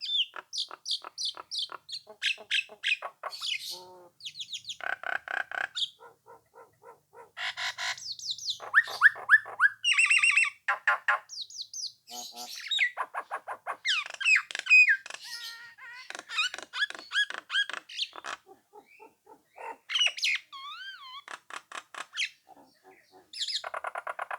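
Nias hill myna singing a varied run of loud whistles, harsh squawks and rapid chattering notes, broken by short pauses. A wavering, up-and-down whistle comes about three quarters of the way through.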